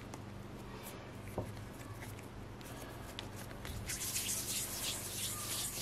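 Hands rolling and smoothing a ball of bread dough between the palms: soft rubbing that grows louder about two-thirds of the way through, over a low steady hum.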